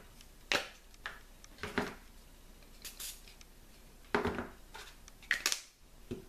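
A plastic spring clamp and small bottles being handled on a plastic cutting board: a series of about six short clicks and knocks, the loudest about four seconds in.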